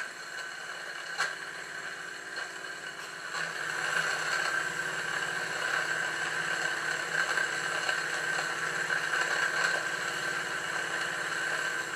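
Small twin oscillating-cylinder model steam engine running steadily on live steam, with a continuous hiss and a few sharp pops in the first few seconds. The popping and crackling come from the boiler, where steam oil is burning off and water is dripping onto the burner. The sound grows somewhat louder about four seconds in.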